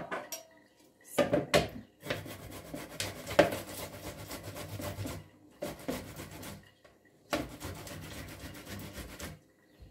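Food preparation by hand: metal utensils and dishes scraping, rubbing and clinking in several stretches, the longest lasting about three seconds, with short pauses between them.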